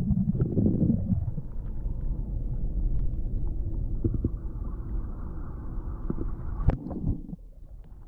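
Creek water heard underwater through a submerged camera: a muffled low rumble with a few faint ticks and one sharper knock about seven seconds in, growing quieter near the end.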